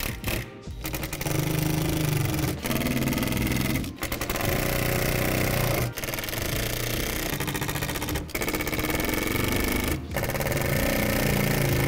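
Cordless drill driving screws into plastic panels, in a series of runs broken by short pauses.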